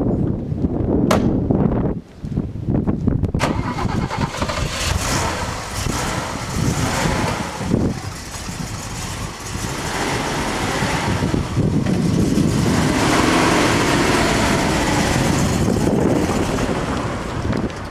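Two sharp clicks, then the 1970 Opel Commodore's 2.5-litre six-cylinder engine starts and runs steadily.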